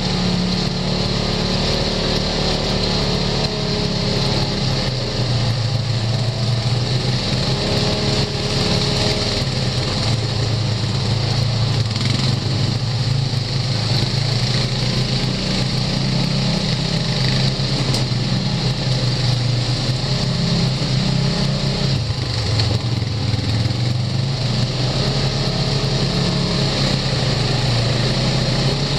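Side-by-side UTV's engine running steadily as it drives along a rough dirt trail, its note shifting with the throttle and dropping briefly about three quarters of the way through.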